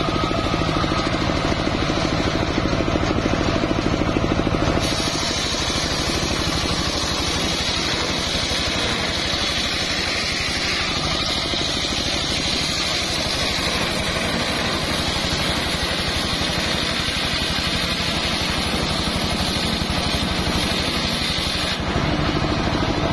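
Engine-driven homemade circular saw bench running steadily. About five seconds in, the blade bites into a jowar log and a loud rasping sawing noise rides over the engine, dropping away again shortly before the end.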